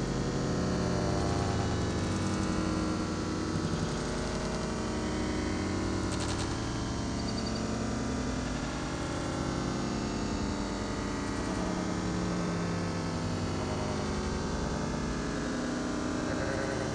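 Steady, dense synthesizer drone and noise with a low hum, with no clear beat.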